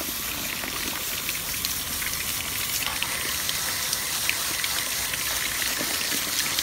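Water spraying from a garden-hose nozzle onto the fins of an air conditioner's condenser coil as it is rinsed clean: a steady hiss of spray with small scattered ticks.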